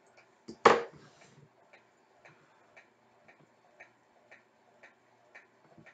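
Faint steady ticking, about two ticks a second, with one louder sharp knock just under a second in.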